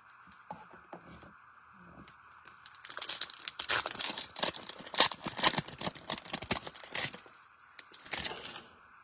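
Foil trading card pack wrapper being torn open and crinkled: a few soft clicks, then a dense run of tearing and crackling for about four seconds, and a short crinkle near the end.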